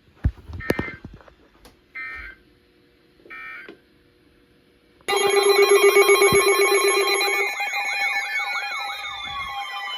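Three short bursts of Emergency Alert System data tones, the end-of-message signal of a weather radio alert. About five seconds in, a sudden loud mix of overlapping electronic alarm tones starts: steady tones, warbling siren-like glides and falling sweeps.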